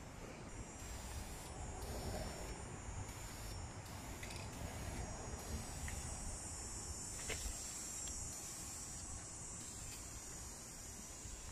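Steady high-pitched drone of insects, over a low outdoor rumble, with a few faint clicks.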